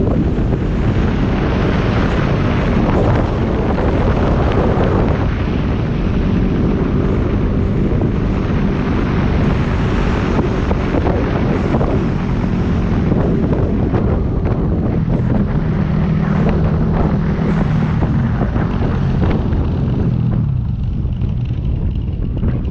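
Wind buffeting the microphone of a moving motorcycle, with the Yamaha WR250X's single-cylinder engine droning steadily underneath.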